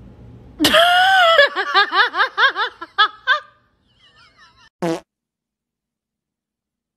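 A long, high, squeaky fart: a held tone that breaks into quick sputtering squeaks about four a second and dies away after about three seconds. A short, sharp sound comes about a second later.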